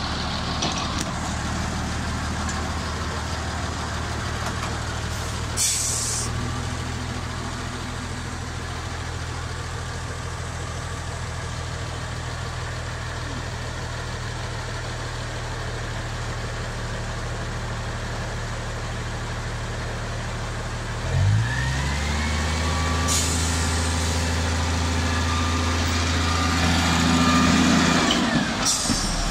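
Diesel engine of an Mk48 narrow-gauge diesel locomotive running steadily as the locomotive moves along the track. About 21 seconds in the engine revs up, a whine rising with it. Short bursts of hiss come at about six seconds, at about 23 seconds and near the end.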